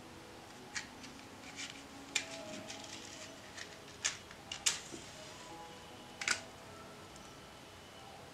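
A matchbox handled and a match struck: a series of sharp scratches and clicks, the loudest about four and a half and six seconds in. Soft background music plays underneath.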